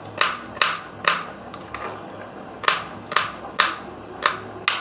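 Kitchen knife chopping garlic on a cutting board: sharp taps of the blade striking the board, about eight in all, with a pause of about a second and a half after the first three.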